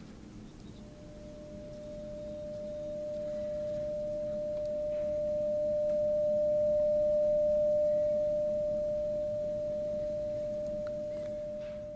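A steady pure tone of about 600 Hz. It drops out for a moment at the start, then grows louder over several seconds and eases back, while the pitch stays the same.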